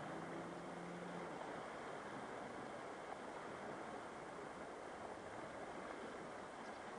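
Shallow river water flowing over a pebble bed, a steady, even rush. A faint low hum drops away about a second in.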